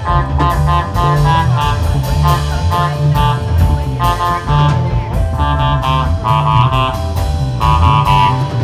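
Background music: electric guitar over bass and a steady drum beat, in a bluesy style.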